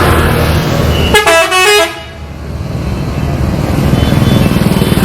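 A tour bus's telolet horn plays a quick run of stepped musical notes about a second in, lasting under a second. Under and after it a bus's diesel engine rumbles, growing louder towards the end.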